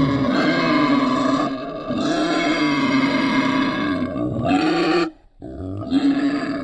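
Wild boar vocalising in long, drawn-out grunting calls, with a short break about five seconds in.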